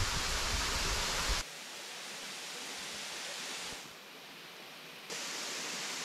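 Steady rushing hiss of a waterfall pouring into a pool. It is louder and deeper for the first second and a half, then drops suddenly, dips again for about a second near the middle, and comes back up about five seconds in.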